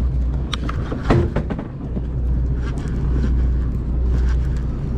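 Sport fishing boat's engine running with a steady low drone, with a couple of sharp knocks about half a second and a second in.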